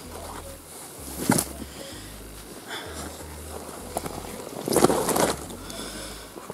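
Handling noise of a carp landing net and cradle: the wet net mesh rustles as it is shaken and lifted off, with a short slap about a second in and a longer scuffling rustle about five seconds in as the fish is handled on the mat.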